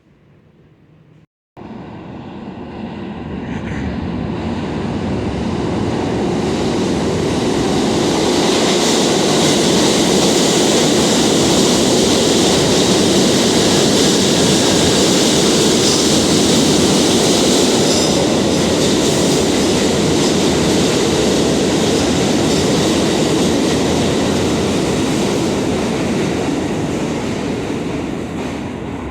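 A New York City subway train running through the station, its noise building over several seconds, staying loud with a steady rumble and rail clatter, then fading near the end.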